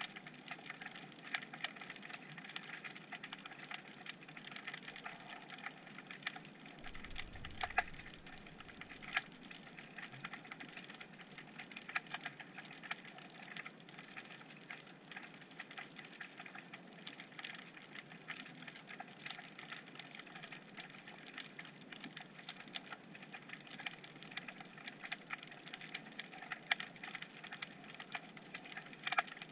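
Underwater crackling picked up by a GoPro in its waterproof housing: a dense, irregular patter of small sharp clicks, with a brief low rumble about seven seconds in.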